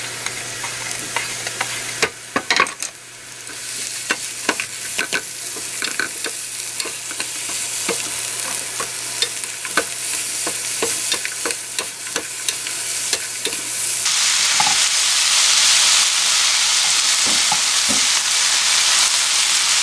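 Sliced onions sizzling in hot cooking oil in a nonstick frying pan, with a wooden spoon knocking and scraping against the pan as they are stirred. About two-thirds in, the sizzle turns louder and steadier and the knocks mostly stop.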